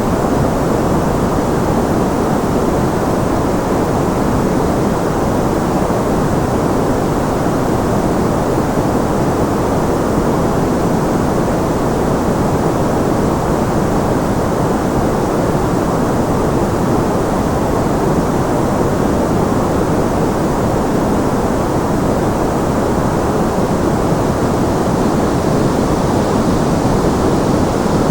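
Steady generated masking noise: an even, unchanging hiss, heavier in the low and middle range and thinner toward the top.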